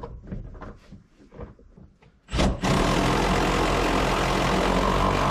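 A few light clicks and knocks, then about two seconds in a power tool with a socket starts up and runs steadily, driving the seat belt retractor bolt down through the new carpet.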